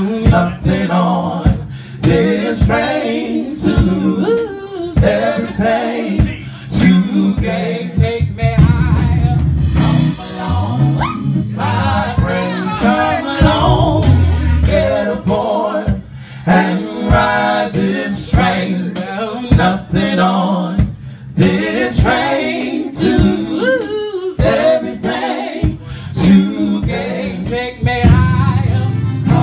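Gospel group singing, largely unaccompanied: a woman's lead voice with men's backing harmonies, over sharp beats about once a second.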